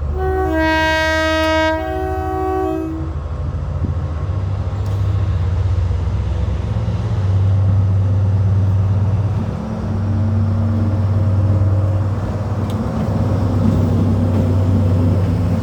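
A train's two-tone horn sounds for about three seconds. The train then runs with a loud, steady low drone that swells twice.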